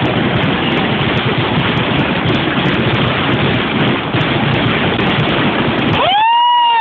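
Fireworks display: many shells bursting and crackling at once, merging into a loud, continuous roar with fine crackles through it. Near the end a high whistling tone rises and falls over about a second.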